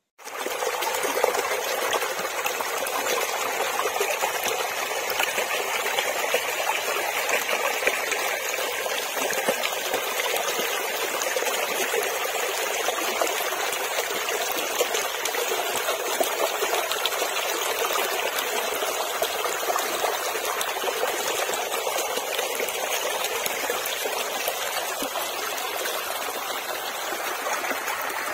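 Shallow water running and trickling steadily through a small muddy ditch channel.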